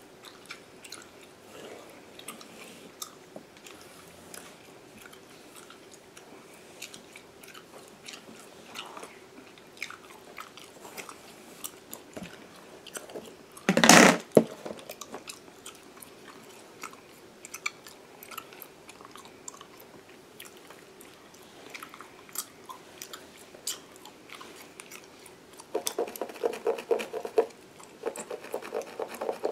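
Gum chewing close to the microphone: wet smacking and clicking of the mouth at an uneven pace, with one much louder burst about halfway through. Near the end a denser run of rapid scratching comes in as a fine-tooth lice comb works along the mannequin's synthetic-hair parting.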